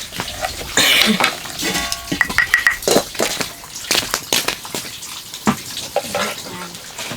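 Dishes and metal utensils clattering, with many sharp clinks and knocks and a short ringing tone about two seconds in.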